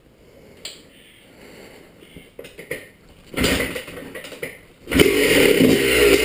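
Kawasaki KDX200 two-stroke single-cylinder dirt bike being started: a few light clicks, then a short burst of engine noise a little past three seconds, and the engine catches about five seconds in and runs loud and steady.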